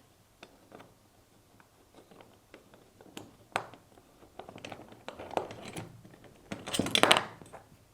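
Light metallic clicks and small taps of an Allen key working a screw out of the rifle's handguard, with a louder scraping stretch near the end.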